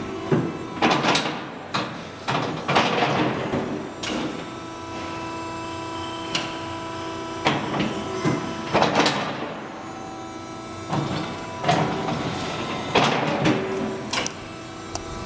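Jorns CNC sheet-metal folder running: a steady machine hum with irregular mechanical swishes and clunks as its beams move.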